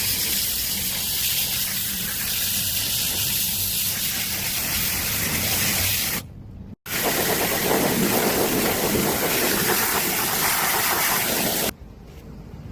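High-pressure water spray hissing steadily as an air conditioner is rinsed during cleaning. It breaks off briefly about six seconds in, starts again, and stops near the end.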